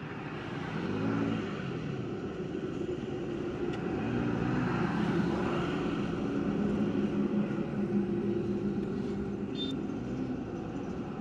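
Motor vehicle engines running, their pitch slowly rising and falling over a steady road-noise hiss.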